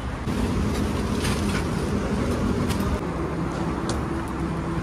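BMW motorcycle engine running at low speed, a steady hum that eases off about three seconds in, with a few light clicks and rattles.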